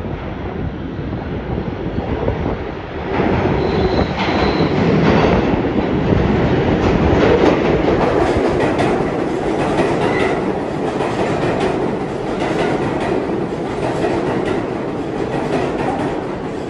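R188 subway train on the 7 line rolling into an underground station, its wheels clattering over the rail joints, growing louder about three seconds in as it reaches the platform. Brief high wheel squeals rise above the rumble.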